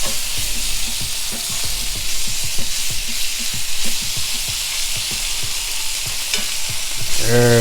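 Bacon jam and split smoked sausages sizzling in a hot pan, with a steady hiss and many short scrapes of a utensil stirring and breaking up the jam.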